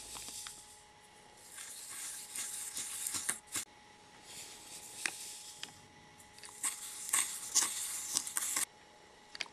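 Plastic packets crinkling as sherbet powder and water are poured into a small plastic cup, then a small spoon stirring and scraping the powder mix in the cup: two spells of crackly rustling with small clicks, the second one near the end.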